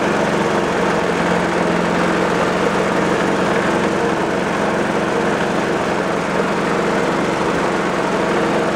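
Snapper snowblower's Tecumseh Snow King single-cylinder four-stroke engine running steadily. It is on a test run to check that an oil leak around a bolt, sealed with gasket maker, no longer drips.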